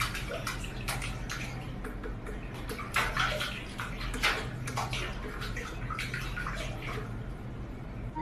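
Water running and splashing, like a bathtub being filled or used, with irregular splashes over a steady low hum.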